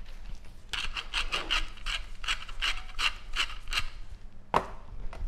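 A large hand-held pepper mill being twisted, grinding pepper in a quick run of short clicks, about five a second, for about three seconds. A single sharp knock follows near the end.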